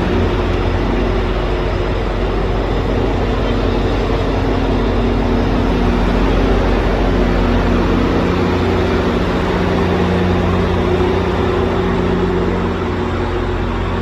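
Steady engine rumble with a constant low hum, easing slightly near the end.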